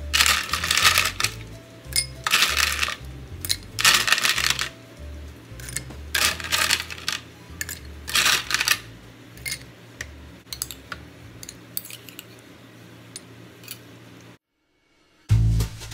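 Ice cubes dropped into glasses, clinking and rattling against the glass in several bursts over the first nine seconds, then lighter scattered clinks. Background music plays underneath.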